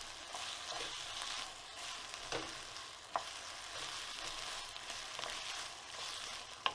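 Sliced peppers, chillies and spring onion sizzling as they fry in a pan, a steady hiss, with three sharp clicks of a utensil against the pan as they are stirred.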